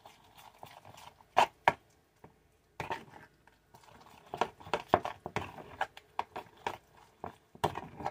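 A utensil stirring thick sweet-potato and oat-flour pancake batter in a glass bowl, tapping and clinking against the glass at an uneven pace, some strokes louder than others.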